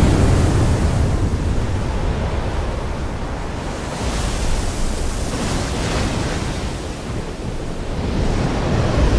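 Stormy sea: heavy waves surging and breaking, with wind, the surf swelling a few times and building again near the end.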